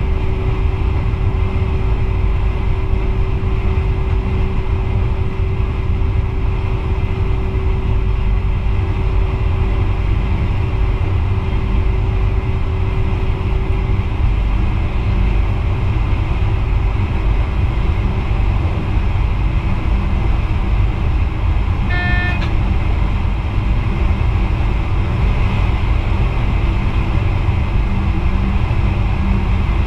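NS VIRM double-deck electric train in motion, heard inside the driver's cab: a steady low rumble of wheels on rail and running gear. A steady hum fades out over the first half, and a brief pitched signal sounds about 22 seconds in.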